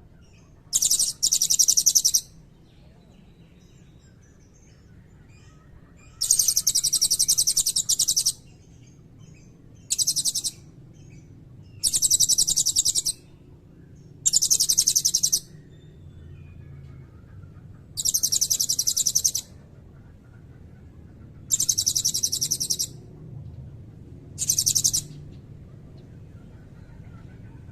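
Blue-crowned hanging parrot (serindit) singing in about eight shrill, rapid trilled bursts, each half a second to two seconds long, with short pauses between.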